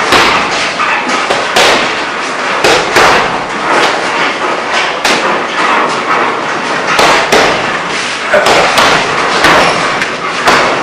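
Gloved strikes landing on a hanging heavy punching bag: dull thuds at an irregular pace, roughly one every half second to second and a half.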